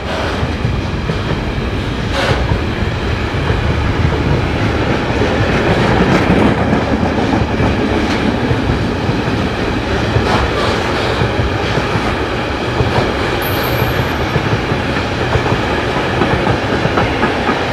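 Container freight wagons rolling past at close range: a steady rumble of wheels on the rails with a few sharp clacks, and a brief thin high squeal about thirteen seconds in.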